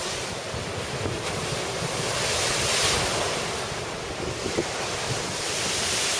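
Rough storm surf breaking and washing in, a continuous rush that swells louder about two to three seconds in, with strong wind buffeting the microphone.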